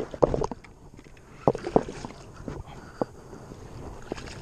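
Irregular sharp knocks and slaps, about eight in four seconds and loudest in the first two seconds, as a hooked largemouth bass thrashes at the side of a plastic kayak while it is being landed.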